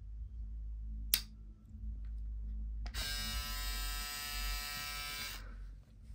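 Braun Series 7 electric foil shaver switched on about halfway through, buzzing steadily for about two and a half seconds, then switched off. A single sharp click sounds about a second in.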